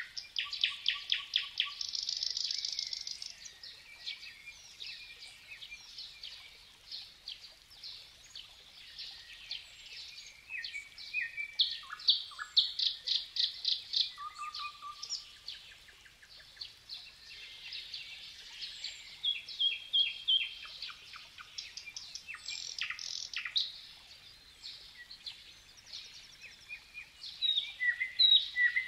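Several songbirds singing at once, a busy chorus of chirps, whistled glides and rapid trills, with louder bursts of fast repeated notes about a second in, around twelve seconds in, and again near the end.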